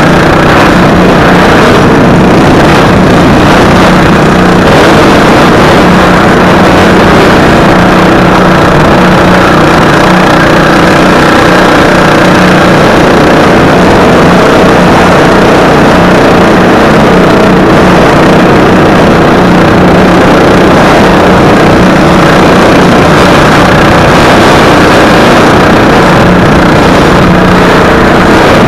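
Racing lawn mower engine running hard at high revs, very loud and close, its pitch holding nearly steady with slight dips and rises through the laps.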